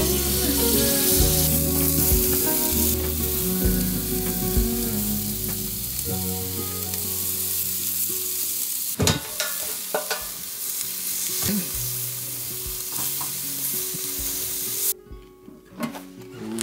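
Mushrooms and marinated meat sizzling and frying on the hot grate of a portable gas grill, with a few sharp knocks as pieces are laid down about nine seconds in. The sizzle cuts off suddenly near the end.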